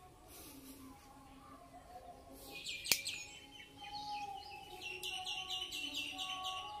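Small birds chirping, ending in a quick run of repeated high chirps over the last two seconds. A single sharp click sounds about three seconds in.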